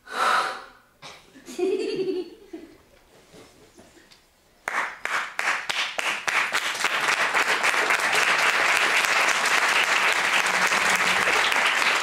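The last gestures of a solo clarinet piece: a short shrill burst and then a brief low tone from the clarinet, followed by a pause. About five seconds in, an audience starts applauding, the clapping quickly building and continuing.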